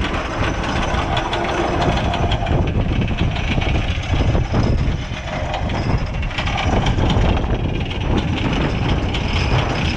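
Wind buffeting the microphone on the open deck of a fishing party boat at sea, a steady low rumble mixed with the noise of the boat and the water.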